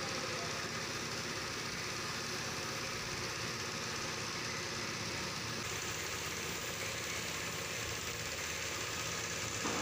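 Steady hiss of a gravity-feed spray gun spraying paint, over the running hum of an air compressor.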